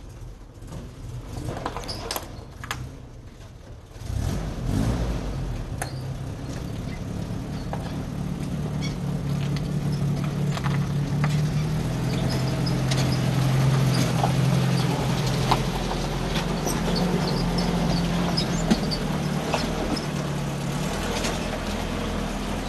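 1960 Willys Jeep's engine running at low revs as it crawls over bare rock, coming in abruptly about four seconds in and growing slightly louder, with scattered sharp clicks throughout.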